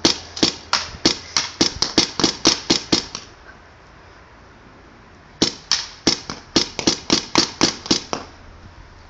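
Air gun firing rapid sharp shots, about four a second. One string of about a dozen shots, a pause of two seconds, then a second string of about ten.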